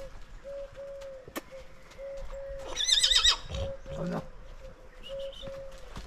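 A horse whinnies once about three seconds in, a short quavering call, over the low thuds of hooves on a dirt trail. A faint short squeak repeats about twice a second.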